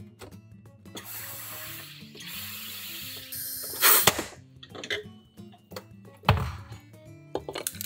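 Home soda maker carbonating a bottle of water: carbon dioxide hissing into the bottle in two long presses, then one short, louder burst. A dull knock about six seconds in as the bottle is taken off the machine, with soft background music throughout.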